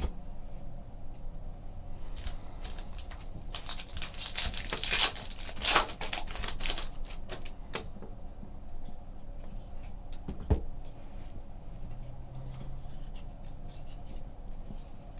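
Trading cards being handled: cards sliding and flicking against each other, with a denser burst of rustling from about four to seven seconds in and scattered light clicks after.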